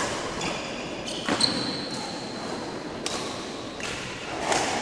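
Badminton rally: rackets striking the shuttlecock and feet hitting the court make about five sharp hits, one every second or so, with a short high squeak about a second and a half in.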